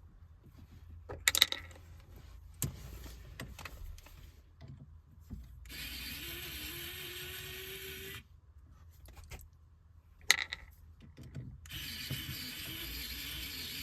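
Sharp clicks and knocks of hand work on a car's gear shifter, with two spells of a couple of seconds each of a steady whirring hiss carrying a low hum that rises, then wavers.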